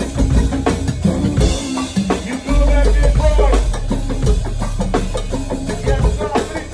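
A go-go band playing: a busy drum kit and percussion groove with a heavy bass line and pitched instrument lines over it.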